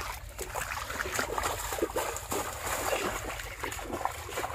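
Feet wading through shallow water among rice stubble: a steady run of small, irregular splashes and sloshes.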